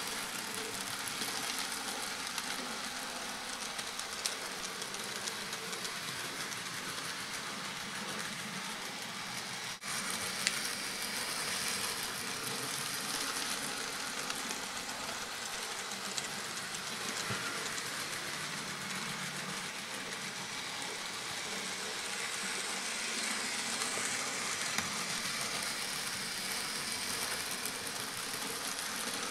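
N gauge Dapol Class 52 'Western' model diesel locomotive running on the layout: a steady whirring hiss from the small motor and wheels on the track, with a few sharp clicks and a brief break about ten seconds in.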